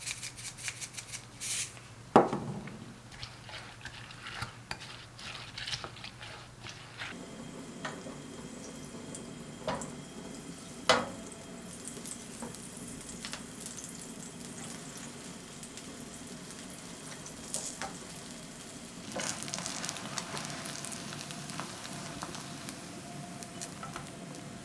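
A wooden spoon stirs chopped cabbage and carrot in a glass bowl, clicking and scraping against the glass. About seven seconds in, this gives way to butter sizzling steadily in a frying pan, with a few sharp knocks. The sizzling gets louder near the end as slices of bread are laid in the pan.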